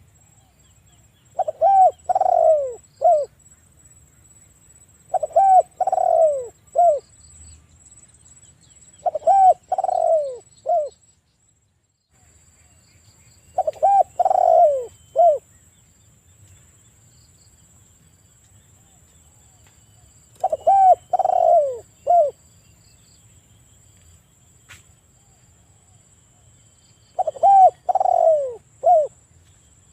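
Spotted dove (tekukur) cooing loudly, repeating a short phrase of three or four descending coo notes six times at intervals of a few seconds.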